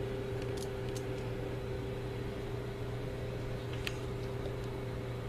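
Steady machine hum of a kitchen appliance, with a few faint light clicks.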